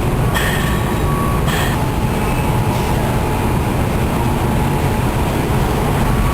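Steady low machinery rumble, with two short clinks in the first two seconds.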